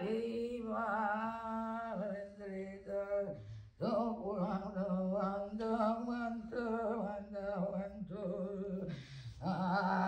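A single voice singing in long held notes with a slight waver in pitch, breaking off briefly about three and a half seconds in and again near the end.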